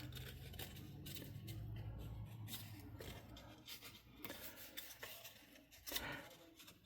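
Faint rustling and light taps of cardstock being handled and pressed while its glued tabs are folded down.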